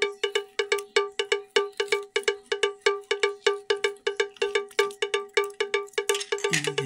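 Rapid, evenly spaced strikes of a cowbell-like percussion sound, about five a second.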